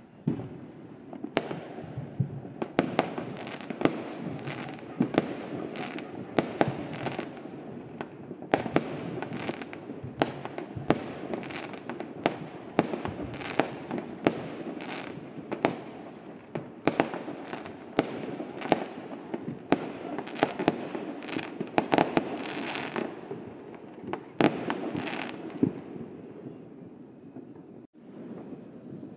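Fireworks going off all over a town: a dense run of sharp bangs, several every few seconds, over a continuous rumble and crackle of many more bursts. It thins out and fades near the end.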